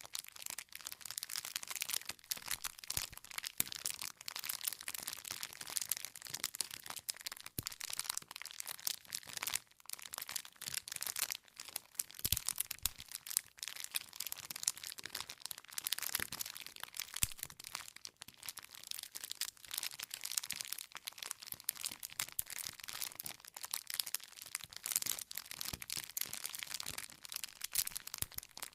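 Wood campfire crackling, with dense, irregular snaps and pops of burning firewood.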